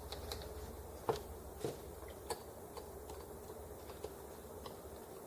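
A few light clicks and taps from small parts and tools being handled during bench work on a model engine. The three clearest come about a second, a second and a half, and two seconds in, with fainter ticks after, over a steady low hum.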